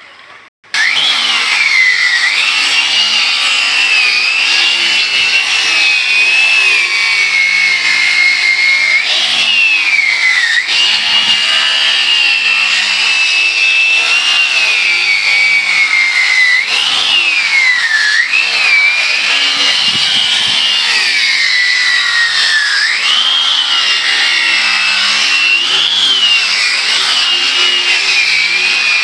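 Electric power tool cutting wood: a high motor whine that sags in pitch each time the tool takes load and then climbs back, many times over. A brief break in the sound comes right at the start.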